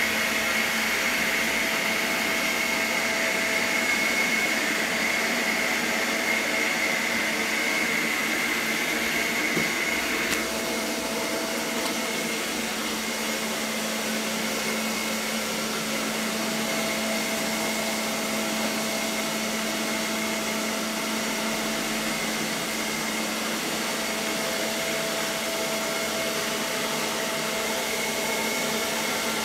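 ILIFE V5S robot vacuum running: a steady whir of its suction fan and brushes. A high whine in it fades about ten seconds in and returns near the end.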